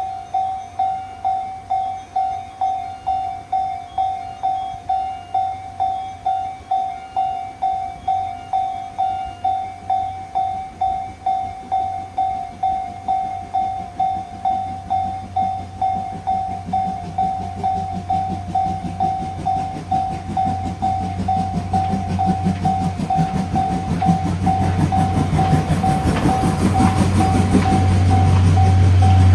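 Japanese level-crossing warning bell going 'kan-kan', a steady tone struck about twice a second. From about halfway through, a train's rumble builds up and becomes the loudest sound near the end as the train reaches the crossing.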